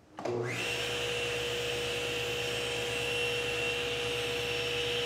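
Table saw switched on: the motor and blade spin up with a quick rising whine, then run steadily at speed without cutting.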